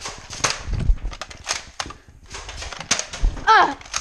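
Foam-dart Nerf blasters firing during play: a run of sharp clicks and pops, about half a dozen, with a short falling shout near the end.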